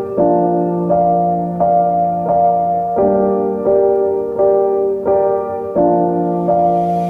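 Background music: a gentle piano track playing a slow, steady sequence of chords, changing about every two-thirds of a second.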